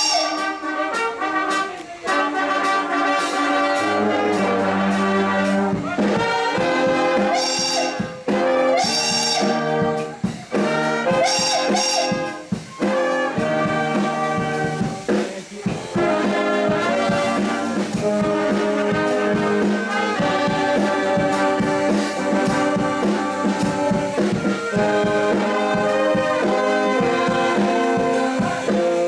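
A brass band playing a tune live, with several instruments sounding together.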